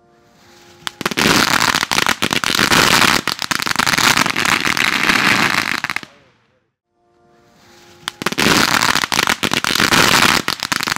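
Huge Crackling Balls firework novelties going off: a hiss builds, then dense, loud crackling of many rapid pops for about five seconds. It cuts off suddenly about six seconds in, and after a second of quiet another hiss builds into the same dense crackling from about eight seconds in.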